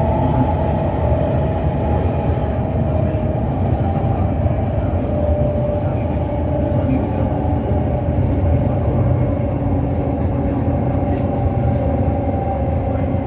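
Passenger train running at speed: a steady low rumble with a faint, slightly drifting whine.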